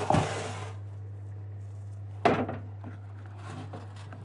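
Cookware being handled at a hot oven, with a clay tagine being taken out: two sharp knocks about two seconds apart, the first right at the start, with rustling noise around them.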